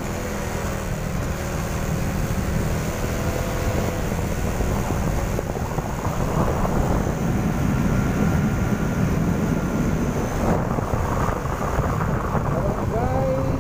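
Motorcycle running steadily at riding speed, its engine under a heavy low wind rumble on the microphone.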